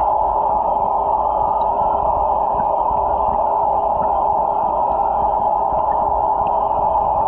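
Steady underwater hiss and hum of water moving in a fish tank, heard through a submerged camera, so it sounds muffled, with no high end.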